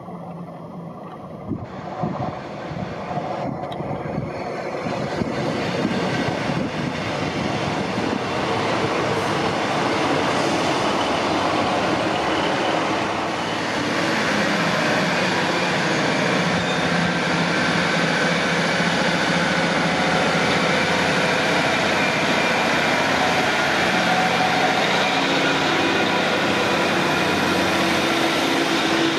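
Northern Class 155 diesel multiple unit approaching and drawing alongside the platform, growing louder over the first ten seconds. It then settles into a steady drone from its underfloor diesel engines.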